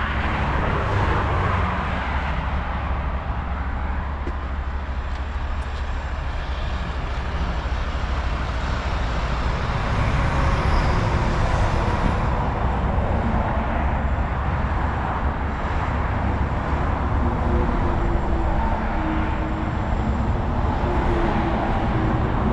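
Steady low rumble of vehicle engine and road traffic noise, unbroken for the whole stretch.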